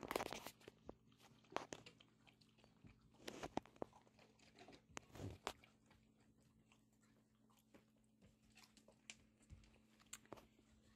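Near-quiet room with scattered soft clicks, taps and rustles from puppies moving about a pen, over a faint steady hum.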